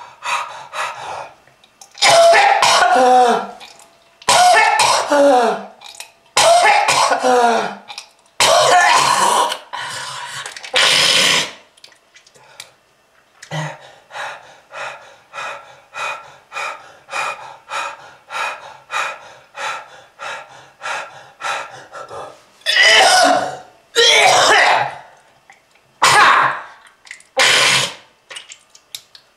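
A person in a hard coughing fit: several long, rasping, hacking coughs that fall in pitch, then a steady run of short coughs about two a second, then more long coughs near the end. It is a smoker's cough.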